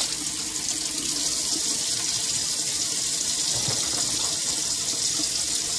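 Kitchen faucet running in a steady stream into a stainless-steel sink.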